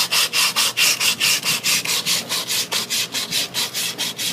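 Sandpaper rubbed back and forth by hand over a rusty refrigerant-line filter drier, about five quick scraping strokes a second, sanding the rust down to bare metal.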